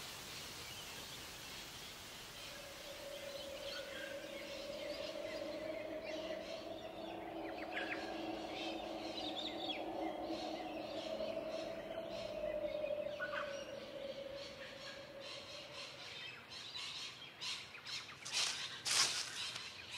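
A sustained droning chord that swells in and fades out, with bird-like chirps and calls over it. A run of sharp clicks comes near the end.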